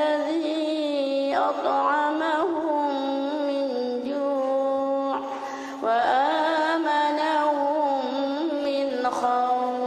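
A woman's voice reciting the Quran in Arabic in the melodic tarannum style through a microphone. She holds long, ornamented notes in several phrases, with a short breath before each new phrase.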